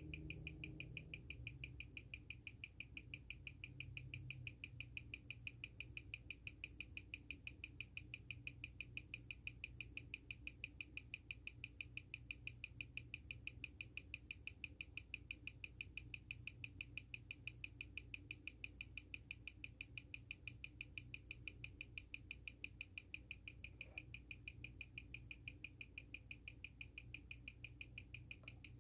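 Seiko SARB035's 6R15 automatic movement ticking steadily at 21,600 beats per hour, six ticks a second, on a timegrapher. The reading shows it running about +10 seconds a day with around 280° amplitude and 0.4 ms beat error.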